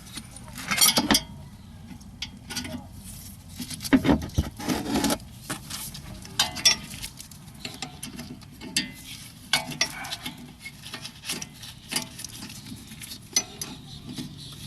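Irregular metallic clinks and scraping as an Allen key is fitted into the rear brake caliper's bolt and turned to undo it, with louder bursts of clatter about a second in and around four to five seconds.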